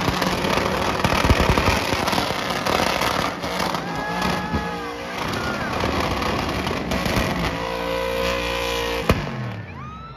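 Race car engine at high revs with crackling pops from the exhaust, its pitch rising and falling, then dropping away a little before the end.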